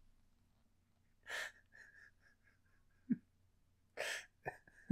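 A man's quiet, breathy laughter: a few wheezing bursts, with a quick run of short pulses between one and three seconds in and another burst near the end.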